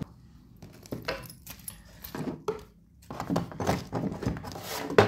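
Small items and packaging being handled and set down inside a wooden drawer: a run of light knocks and rattles with some rustling, busiest in the second half.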